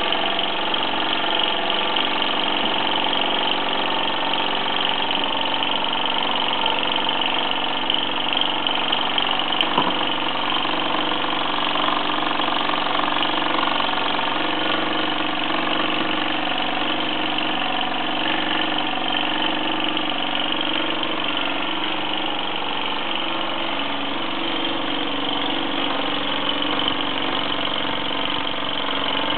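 1948 Mamod SE1 toy steam engine running steadily, driving the belts and line shafting of a Meccano model workshop.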